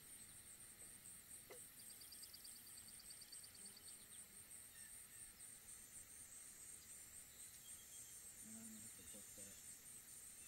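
Faint, steady high-pitched insect chorus, pulsing evenly, with a short rapid trill about two seconds in.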